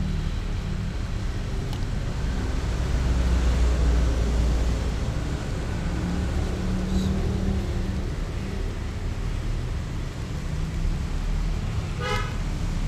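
Steady low rumble, like vehicle traffic, with a short pitched horn-like toot about twelve seconds in.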